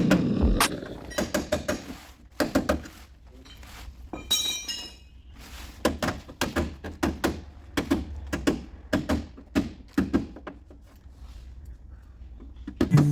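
Irregular light knocks and taps on a car hood's sheet metal during paintless dent repair, with a couple of short pauses between runs of strikes.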